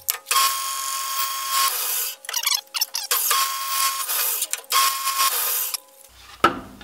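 Bandsaw blade cutting through the wooden fence of a crosscut sled, the cutting noise coming in three stretches of about a second each with short lulls between.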